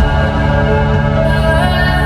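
Music: an instrumental stretch of held, sustained chords with no singing.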